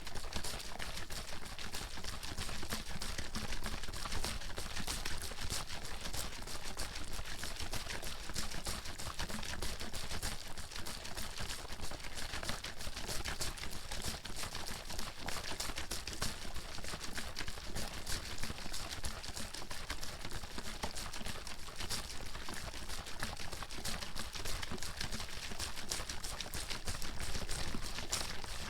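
Plastic water bottle with water inside being shaken hard and steadily, the water sloshing and slapping against the walls in a fast, continuous clatter.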